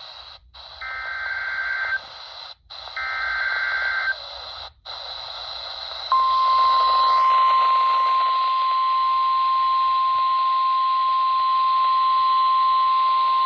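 NOAA Weather Radio alert on a RadioShack 12-254 weather radio's speaker, over steady reception static hiss. The end of one SAME digital header burst is followed by two more short warbling data bursts, and about six seconds in the loud, steady 1050 Hz Warning Alarm Tone begins and holds. Together these announce an incoming warning, here a severe thunderstorm warning.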